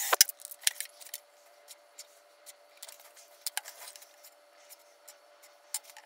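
A cordless drill spins down right at the start, then come irregular light metallic clicks and scrapes as a metal rod is handled and pushed into a freshly drilled hole in a wooden block. The rod is a slightly tight fit in the hole.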